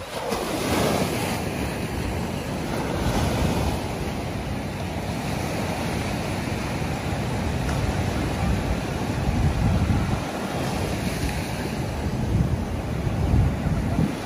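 Ocean surf breaking and washing up a sand beach, a continuous rushing that swells a little now and then, with wind buffeting the microphone.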